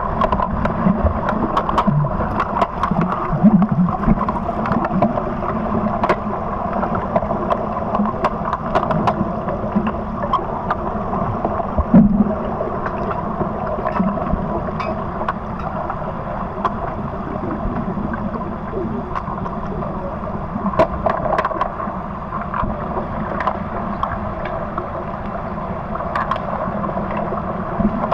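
Muffled underwater churning of pool water and bubbles from swimmers kicking with fins during an underwater hockey game. Scattered sharp clicks and knocks run through it.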